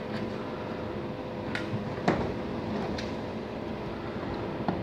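A steady mechanical hum holding a few even tones, with a handful of light clicks and knocks, the sharpest about two seconds in.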